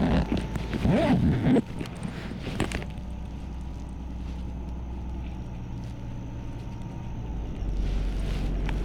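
LiAZ bus engine running. Its pitch swings up and down for about the first second and a half, then it settles to a steady drone that grows a little louder near the end.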